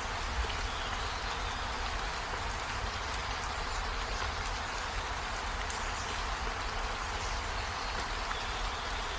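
Steady rainfall, an even hiss with a low rumble underneath.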